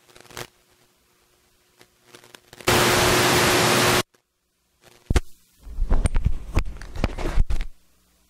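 Wireless lavalier microphone being set up: a loud burst of static hiss lasting about a second and a half that cuts off suddenly, then clicks and rustling handling noise as the clip-on mic is fitted.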